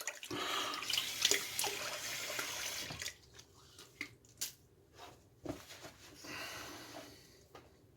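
Water running from a tap into a sink, stopping about three seconds in; a few light knocks follow, then a shorter, fainter run of water.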